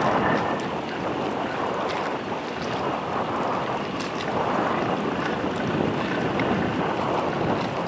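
Strong wind blowing over the microphone: a loud, even rushing that eases a little in the first few seconds and then rises again.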